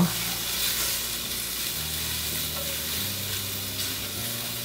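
Sliced mushrooms sizzling steadily in hot oil in a stainless steel sauté pan, being stirred and pushed around with a silicone spatula.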